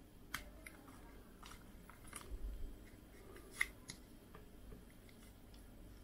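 Small sharp clicks and snaps of a tight plastic camera holder being worked off a RunCam 2 action camera, about half a dozen in all, the loudest about three and a half seconds in.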